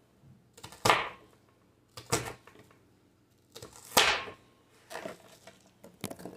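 Kitchen knife slicing through a peeled yellow onion onto a cutting board: three distinct cuts about a second or two apart, then a few lighter knife taps near the end.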